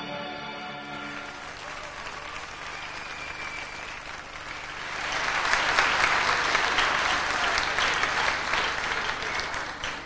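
Audience applauding, swelling about five seconds in as the last notes of the routine's music die away, then fading near the end.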